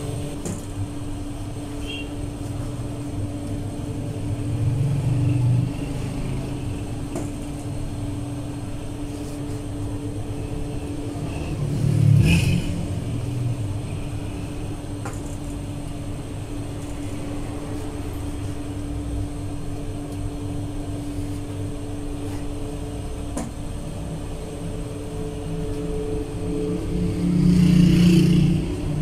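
Steady mechanical drone of a revolving gas-fired bread oven, a burner and motor hum with two held tones. It swells louder three times, about five, twelve and twenty-eight seconds in.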